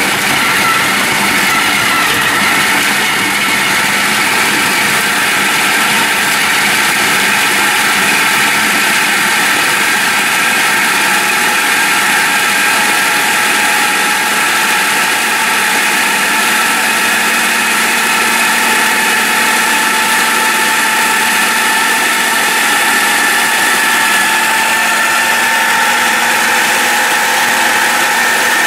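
Hamilton Beach food processor motor running steadily, its blade grinding frozen banana chunks into crumbs.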